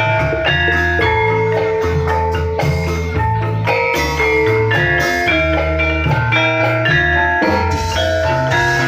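Music: a melody of struck, pitched mallet-percussion notes over held bass notes.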